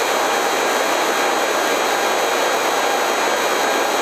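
Eurocopter EC135 helicopter's twin turbine engines and main rotor running at flight RPM on the ground, heard inside the cockpit as a steady rushing noise with a faint high whine.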